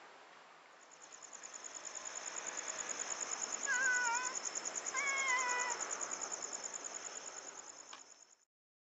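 A night insect trilling steadily, a fast even high-pitched pulsing chirr, while a cat meows twice in the middle, each meow about half a second long and wavering slightly downward.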